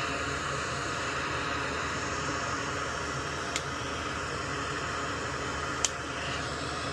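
Steady fan-like hiss of moving air, with two small clicks, one about three and a half seconds in and one near six seconds.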